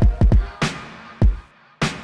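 Background music with a punchy electronic beat: deep low thumps and sharp cracking hits in quick succession.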